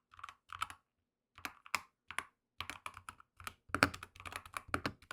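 Typing on a Keychron K10 HE full-size keyboard with magnetic Hall-effect switches: a few scattered keystrokes at first, then quicker, steadier typing from about halfway through.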